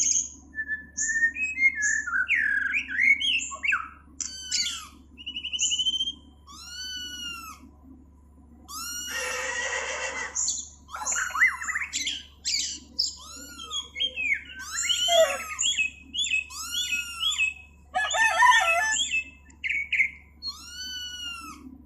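Recorded birdsong played back by the app's bird button: a busy mix of chirps, trills and whistles. A short arched whistle repeats every second or two, and a harsh squawk comes about nine seconds in.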